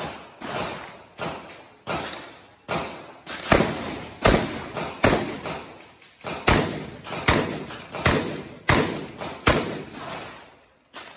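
Pump-action shotgun fired in a steady string, about one shot every three-quarters of a second, each shot trailing off in echo.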